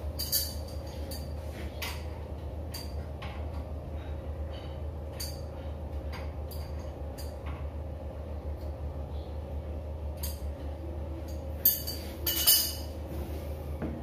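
Scattered clicks and clinks of a hand tool and pipe fittings being handled at a shower water heater, with two louder clinks near the end, over a steady low hum.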